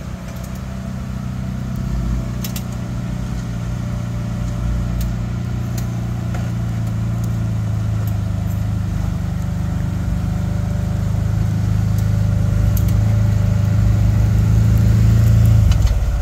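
Jeep Wrangler Rubicon engine running at low revs as it crawls over rocks, with a steady low hum that grows slowly louder and drops away abruptly near the end.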